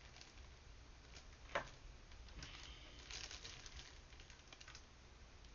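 Faint scattered clicks and rustling close to the microphone, with one sharper click about a second and a half in.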